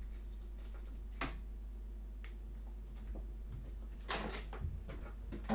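A steady low electrical hum with a few faint, sharp clicks and a short scrape about four seconds in: small handling sounds at a workbench during soldering.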